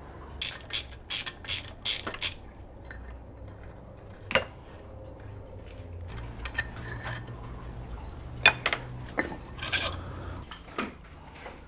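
Light metallic clinks and knocks of metal parts being handled at the outboard's lower unit, around the driveshaft and water pump housing. There is a quick run of about eight clinks in the first two seconds, then scattered single knocks, over a low steady hum.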